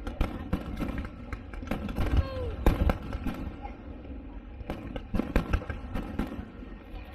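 Fireworks display going off: a rapid, irregular string of bangs and crackling pops over a low rumble, the loudest bang a little under three seconds in.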